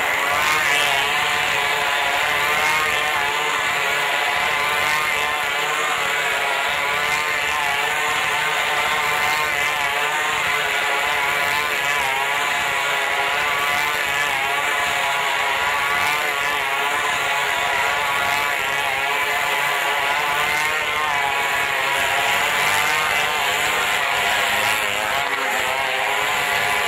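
Two small motorcycles running continuously as they circle the wooden wall of a wall-of-death drum, their engine note rising and falling.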